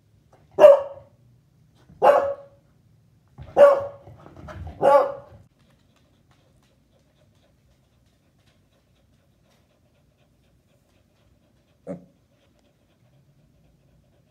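Beagle barking: four loud barks in the first five seconds, then one quieter single bark after a long pause.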